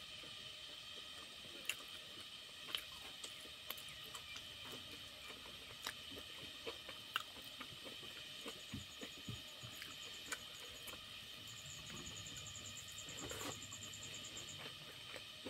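Hand-eating from a stainless steel plate: fingers mixing rice and curry make faint, scattered clicks and taps against the metal, with some chewing. A rapid, high-pitched trill sounds from the middle to near the end.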